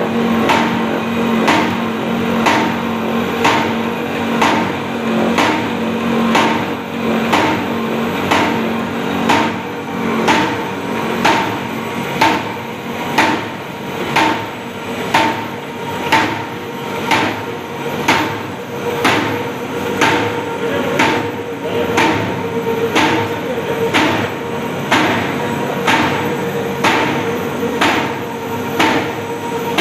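Cardboard sheet-cutting machine running: a regular knock about once a second as its knife cuts the paper web into sheets, over a steady machine hum.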